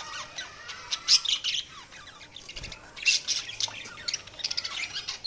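Budgerigars chirping and chattering: many quick, high chirps and warbles in busy bursts, loudest about a second in and again about three seconds in.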